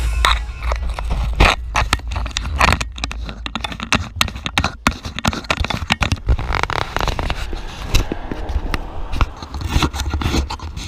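Handling noise from fingers touching and adjusting a small action camera right at its microphone: irregular scraping, rubbing and sharp clicks.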